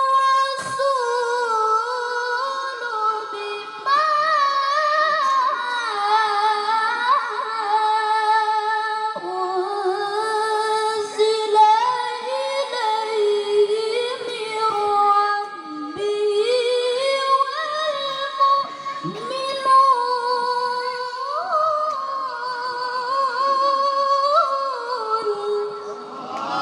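A woman singing a slow melody in a high voice, holding long notes and sliding between pitches.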